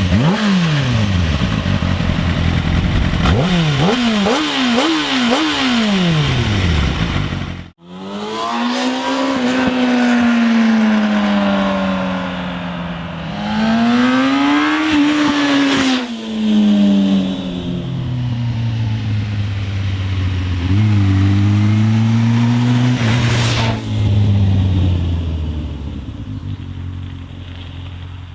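2007 Kawasaki ZX-6R 600cc inline-four with its stock exhaust, catalyser and exhaust valve, revved in several quick throttle blips. The sound cuts off sharply about eight seconds in. It then runs with slower, longer rises and falls in engine pitch, settles lower, and fades near the end.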